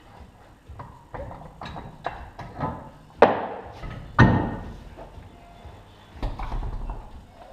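Metal knocks and clanks, with the two loudest about three and four seconds in, each ringing out briefly. They fit a steel-rimmed wheel being handled at a wheel balancer.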